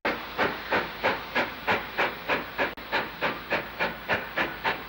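Steam locomotive working steadily, its exhaust beats chuffing in an even rhythm of about three a second.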